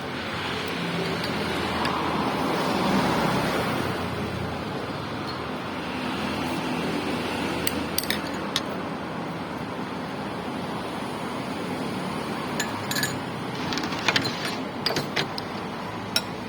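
Utensils clinking against a bowl and condiment jars while noodle soup is seasoned: a few sharp clinks in the second half, with more of them close together near the end, over steady background noise.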